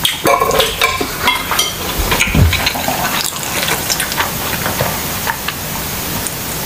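Close-miked wet chewing and mouth smacks, with many small crackly clicks, then sips and swallows of juice from a glass in the second half.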